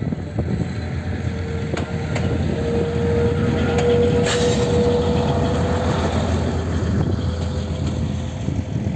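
Diesel railcar running close past over a level crossing: a steady low rumble with a few sharp clacks of the wheels. A steady whine swells and is loudest in the middle, as the car goes by, and the sound eases slightly near the end as it moves away.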